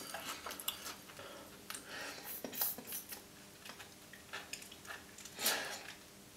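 Small clinks and handling noises from a glass bowl of custard being picked up and held to the mouth, with a few soft slurps as custard is sucked up through a Tim Tam biscuit with its ends bitten off; the loudest slurp comes about five and a half seconds in.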